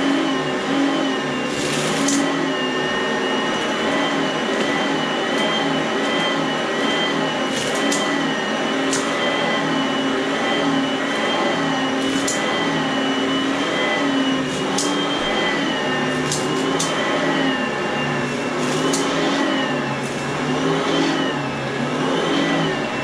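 Oreck upright vacuum cleaner running steadily, its motor whine wavering slightly up and down as it is pushed back and forth over a rug. About ten sharp clicks are scattered through it as bits of debris are sucked up.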